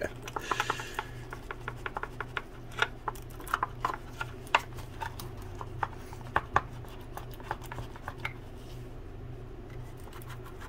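A chip brush dabbing and scraping epoxy resin into reinforcing cloth inside a small RC boat hull: irregular light taps and scratches of the brush against the hull, thinning out near the end, over a steady low hum.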